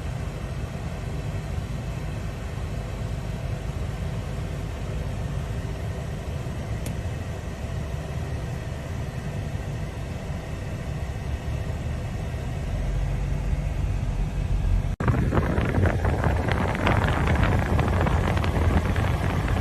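Steady low rumble of a car idling, with a faint steady engine hum over it. About fifteen seconds in, the sound cuts out for an instant and returns louder, with a rushing hiss over the rumble.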